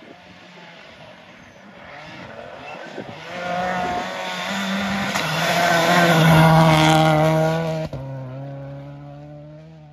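Rally car engine at high revs on a gravel stage, building to a peak as the car passes close, with a hiss of tyres and gravel on the loose surface. The engine note then fades as the car goes away.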